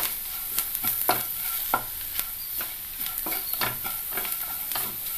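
Onions and spice powders frying gently in a nonstick pan on low heat: a steady soft sizzle, with irregular scrapes and taps of a spatula as the masala is stirred. The powders are being roasted slowly so they don't burn.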